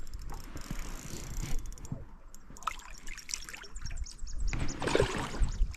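Lake water lapping and trickling against the side of an aluminum fishing boat, with scattered small ticks. It grows louder and splashier over the last second or so.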